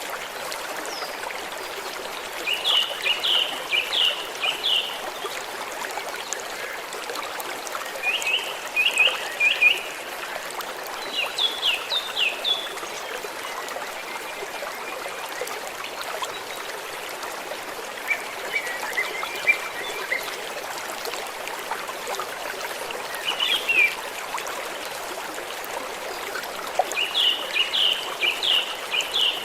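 A small stream of water trickling and running steadily, with a bird calling in short bouts of rapid chirps every few seconds over it.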